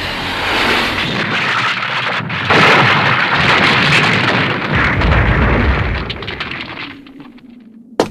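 A long, loud explosion-like blast sound effect, a dense rushing noise that swells about two and a half seconds in and dies away near the end. A single sharp crack comes just before the end.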